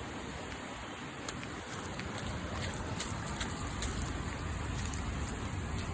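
Steady hiss of rain with wind rumbling on the microphone, the rumble growing a little louder after about two seconds, and faint scattered ticks.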